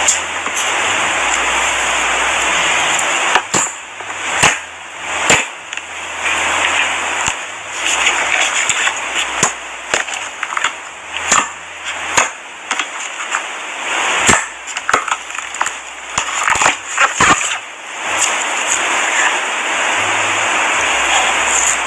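Clear slime being squished and stretched by hand: a continuous wet crackling with many sharp pops of air bubbles, the pops most distinct in the middle stretch.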